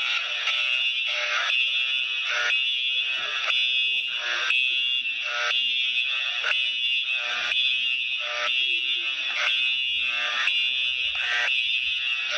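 Simplex fire alarm sounding continuously: a steady high tone with a stronger pulse about once a second.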